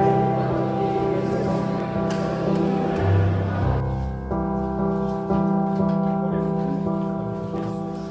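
Background music with slow, held chords that change every second or so.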